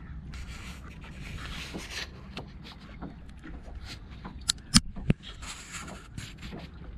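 Breeze rumbling on the microphone aboard a small anchored boat, with a few sharp clicks and knocks about two-thirds of the way through.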